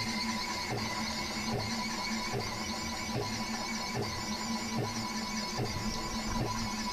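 Stepper motors of a home-built CNC machine driving a marker pen as it traces a letter outline, with a steady high whine and warbling hiss. A faint regular pulse comes a little more than once a second.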